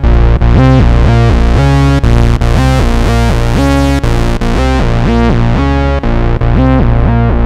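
Korg Minilogue analog synthesizer playing a preset patch: a loud, bass-heavy phrase whose notes change about twice a second, starting over every two seconds.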